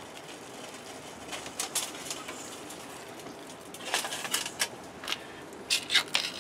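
Pot of water at a full boil on a Bobcat 2.0 backpacking stove, bubbling steadily, with a few short clicks about a second and a half, four and six seconds in.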